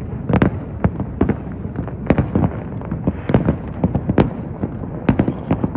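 Fireworks exploding in quick succession: a dense, irregular run of sharp bangs, several a second, over a continuous low rumble of the aerial shells bursting.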